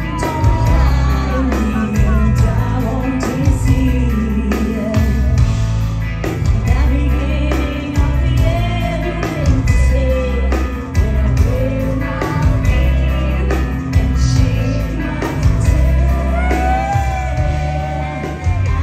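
Live metal band in full play: a female lead singer sings a gliding clean melody over a heavy, pounding bass and drums, heard through the hall's PA.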